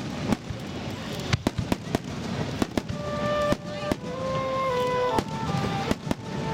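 Aerial firework shells bursting, a rapid, irregular run of sharp bangs. Music with long held notes plays underneath from about three seconds in.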